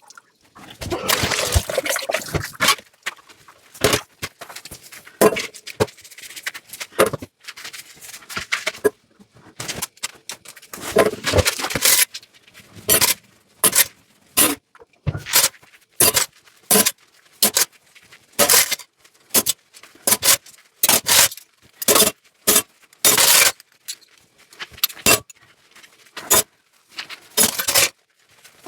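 Dishes being washed by hand: irregular clinks, knocks and scrapes of dishware and cutlery, with a short spell of running water near the start.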